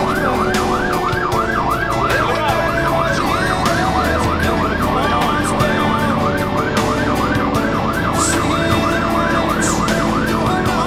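Fire engine's siren on a fast yelp, a rising-and-falling wail repeating about three times a second, heard from inside the truck's cab over a low rumble of engine and road noise.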